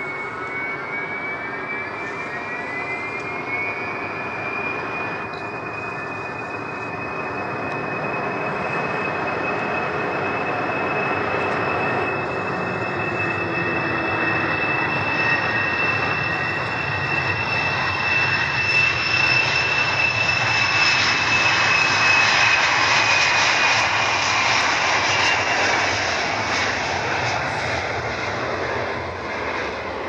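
Ilyushin Il-62 freighter's four rear-mounted Soloviev D-30KU turbofans spooling up to takeoff power with a whine that rises in pitch over the first few seconds. The loud jet noise then builds through the takeoff roll, peaks about two-thirds of the way through and eases slightly as the plane passes.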